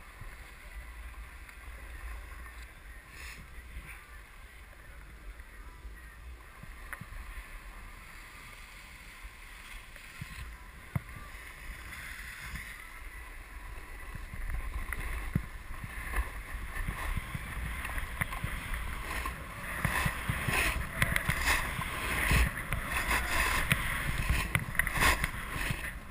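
Skis sliding and scraping over packed, rutted piste snow, with a low rumble of wind on the microphone. The scraping grows louder and rougher from about halfway through.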